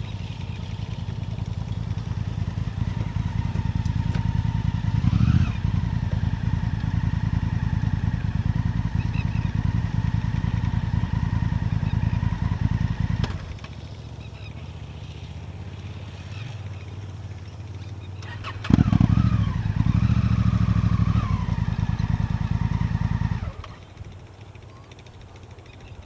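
Motorcycle engine, a BMW R1150GS boxer twin, idling with a short rev about five seconds in. It cuts out about halfway through, starts again with a quick rev a few seconds later, runs briefly and stops near the end.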